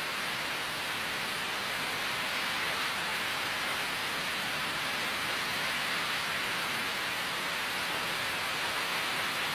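Steady rush of river water pouring over rocks, an even hiss that holds at one level throughout.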